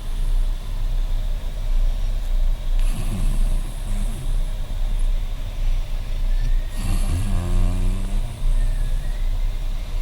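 A woman snoring loudly, a rough, rattling snore swelling on each breath about every four seconds, over a steady low hum.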